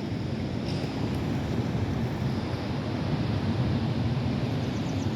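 Steady low outdoor rumble of wind on the microphone and city traffic.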